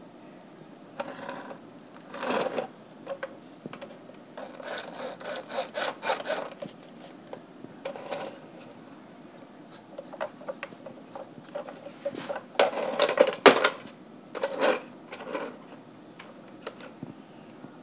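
Hard plastic toy car being handled and turned over: scattered clicks, rattles and rubbing, with quick runs of clicking about five seconds in and again near thirteen seconds.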